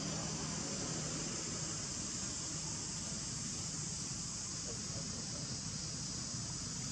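Steady outdoor background noise: a constant high hiss over a low rumble, with no distinct events.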